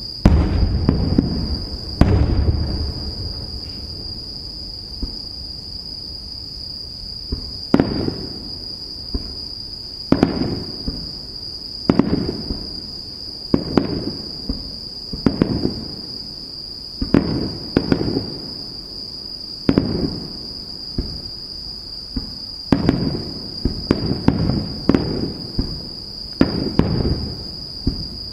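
Aerial firework shells bursting in a steady series: about fifteen sharp booms, each followed by a rolling echo. The two loudest come in the first couple of seconds, and several land close together near the end.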